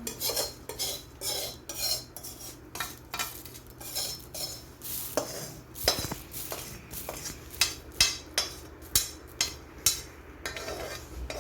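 Metal spoon stirring puffed rice with its seasoning in a metal kadai, scraping and clinking against the pan about once or twice a second, with a few sharper clinks in the second half.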